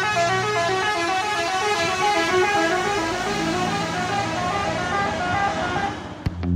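Bus 'telolet' musical air horn of the Basuri type playing a fast tune of stepping notes over a low engine hum, stopping about six seconds in. A click and the start of distorted guitar music follow right at the end.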